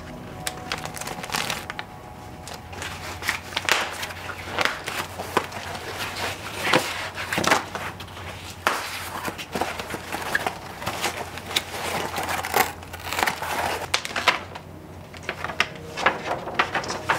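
Foam tube padding and plastic packing wrap rustling and crinkling as they are pulled off a bicycle frame, with many irregular sharp crackles and clicks.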